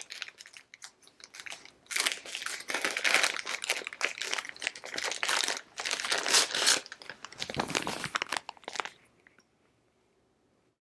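Clear plastic bag crinkling in a series of bursts as it is pulled off a hard plastic display base.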